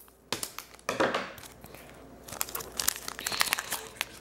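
Foil wrapper of a Donruss basketball card pack crinkling and crackling in short, irregular rustles as it is handled and opened.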